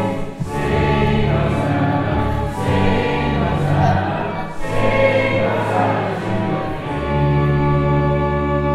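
Music soundtrack: singing voices over slow, sustained chords.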